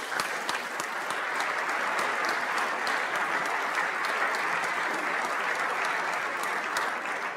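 Audience of legislators and guests applauding in a large chamber, steady clapping that starts at once and fades near the end.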